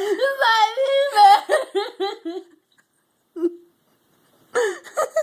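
A girl wailing and whimpering in a high, wavering voice, crying from emotion, with a short sob about three and a half seconds in and another wail near the end.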